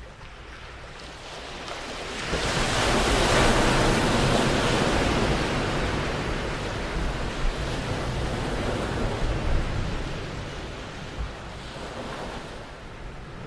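Small waves breaking and washing up a beach: one wave comes in about two seconds in and its wash slowly dies away.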